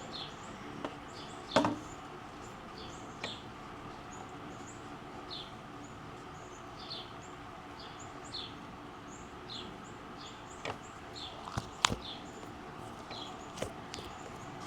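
A small bird chirping over and over, short high falling chirps about once a second. A few sharp clicks of handling stand out, the loudest a little after one second in and again near twelve seconds.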